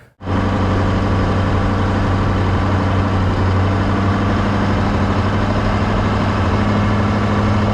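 Engine idling steadily at a constant speed, with no change in pitch, starting abruptly just after the start.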